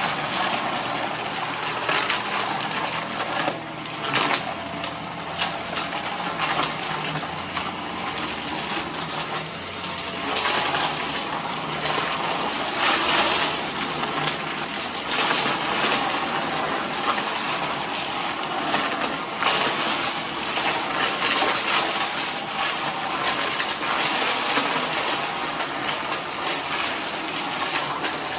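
Vacuum cleaner running while sucking up scattered dry debris, with a continuous crackle and rattle of bits hitting the inside of the machine.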